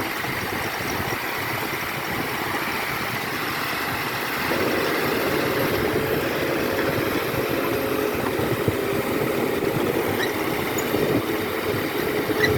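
Heavy diesel engine of a dump truck or machine working on a muddy climb, running steadily, then getting louder about four and a half seconds in with a steady drone as it is put under more load.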